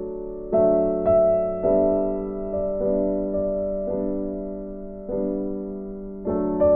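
Slow piano music: notes and chords struck about once a second, each left to ring out and fade.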